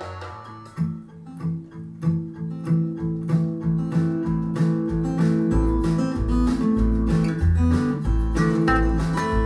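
Folk song with strummed acoustic guitar, starting about a second in, played back through a pair of B&W Vision V201 bookshelf speakers and picked up by a microphone in the room; deep bass notes join from about five seconds in.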